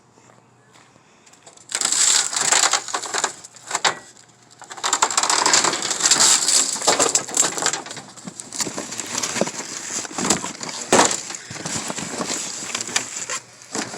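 Loud rustling and crunching of trash being dug through by hand in a dumpster, starting about two seconds in and going on with many sharp crackles.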